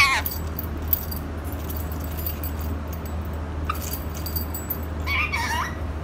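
Indian ringneck parakeet giving short warbling calls, one right at the start and another about five seconds in, with a single light click about a second in, over a steady low hum.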